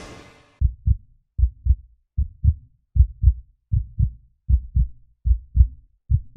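Heartbeat sound effect: slow, low double thumps (lub-dub), about eight in a steady rhythm of roughly 78 a minute, starting just after a music swell fades out near the start.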